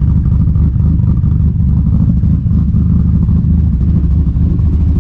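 Turbocharged Nissan VQ V6 in an Infiniti G35 idling steadily, heard close to the exhaust tips: a low, even idle with no revving, the engine still warming up after a cold start.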